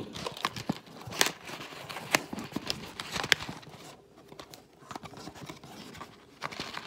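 Irregular sharp clicks and taps, roughly a second apart, over light crinkling and rustling: handling noise from working with kitchen items by hand.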